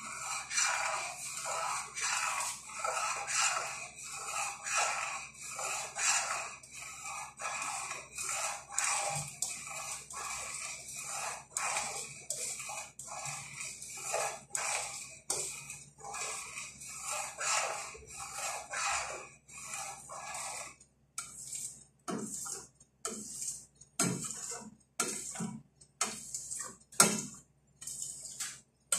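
Metal spoon stirring and scraping round the inside of a stainless steel pot of pinipig simmering in milk, in quick strokes about two a second. About twenty seconds in, the strokes slow and come one by one with short gaps between.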